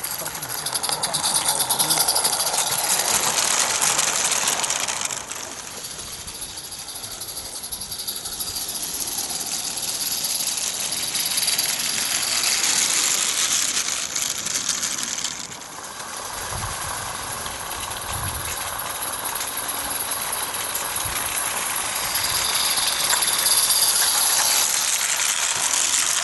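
Small live-steam garden-railway locomotive running with a train of wagons, giving a steady hiss of steam.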